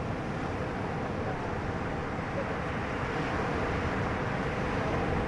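Boat engine running steadily: a continuous drone under an even rush of noise, with no change in pace.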